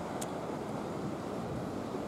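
Steady wind noise on the microphone with the sea washing against a breakwater, and one short faint click about a quarter second in.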